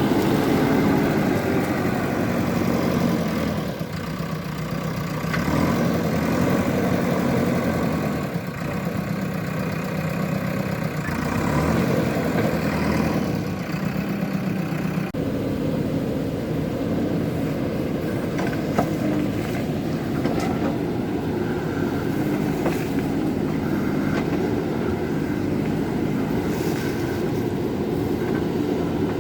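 Excavator's diesel engine running as the machine works, its level rising and easing every few seconds with the load. The sound changes abruptly about halfway through.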